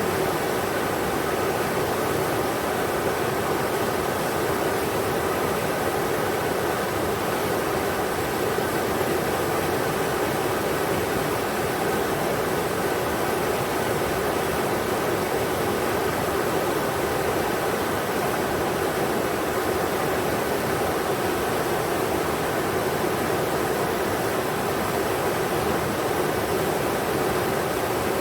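River water rushing steadily over rocks, an even, unbroken rush with most of its weight in the middle range.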